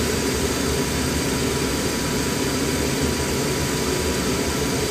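Steady machinery drone: a low hum under an even hiss, with a faint thin whine.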